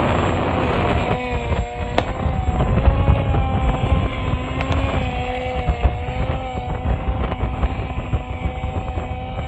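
Steady whine of a small flying craft's propeller motors, its pitch wavering slightly as it holds against the wind, with heavy wind buffeting on the microphone. A sharp click about two seconds in.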